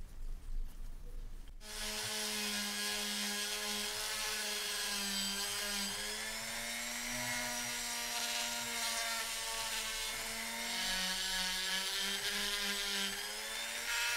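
Rotary tool running with a polishing attachment against a small threaded brass lamp part: a steady motor whine that starts about a second and a half in and wavers a little in pitch.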